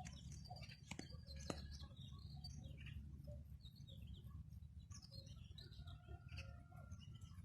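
Faint bird chirps and calls scattered over a low outdoor rumble, with two sharp clicks about a second in.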